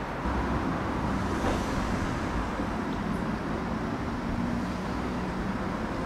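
Steady road traffic noise, a continuous rumble with a faint steady hum, rising slightly just after the start.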